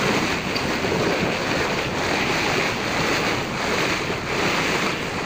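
Steady rush of rough sea water churning alongside a moving ferry boat, with wind buffeting the microphone.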